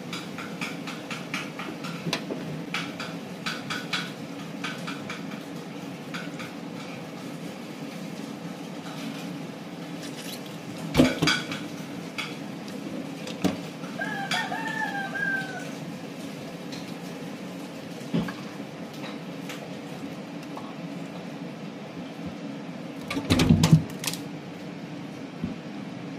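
Hands gutting a large baung river catfish in a stainless steel sink: small wet clicks and knocks throughout, with two loud knocks, about 11 seconds in and near the end. A rooster crows once, about halfway through.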